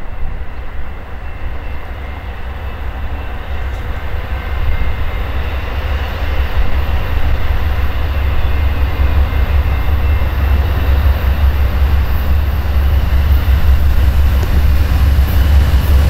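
Amtrak GE Genesis P42DC diesel-electric locomotive approaching at speed with its passenger train, its engine and the train's running sound growing steadily louder as it comes closer, with a deep low rumble underneath.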